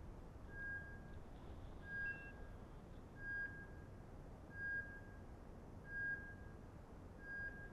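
Bird dog's beeper collar in point mode: a short, steady high beep about every 1.3 seconds, six times, the signal that the dog has stopped and is holding point.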